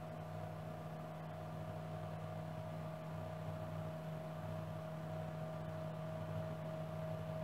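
X-axis stepper motor of a CNC-converted PM-25MV milling machine driving the table along its leadscrew at a steady rate during the homing cycle, a steady whine over a low hum.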